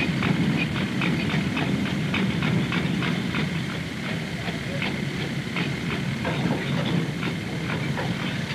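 Chain-guided vehicle ferry hauling itself along its guide chains: a rhythmic metallic clanking of chain over the drive gear, about four clanks a second and slowing a little after the middle, over a low machinery rumble.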